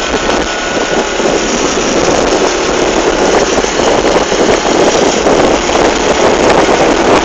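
Motor vehicle engine running steadily under loud road noise.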